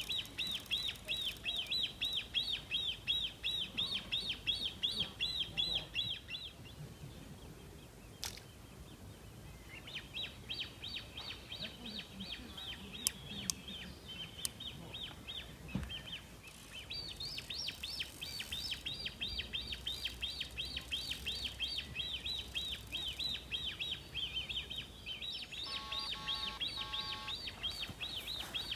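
A high, rapid chirping trill of about nine even chirps a second, in long runs that break off about six seconds in and again around sixteen seconds. A brief lower pulsing tone sounds near the end.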